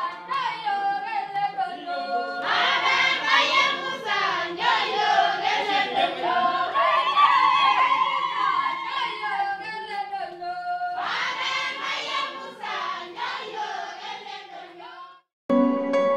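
A group of women singing unaccompanied. The singing swells fuller about two seconds in and again about eleven seconds in, then fades away. Just before the end a short instrumental music piece begins.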